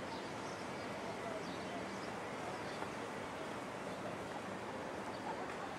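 Steady outdoor background noise: an even hiss with no single clear source and a few faint, short distant sounds.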